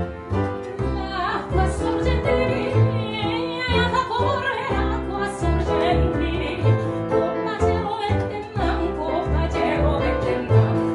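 Soprano singing with wide vibrato over harp, piano and plucked double bass.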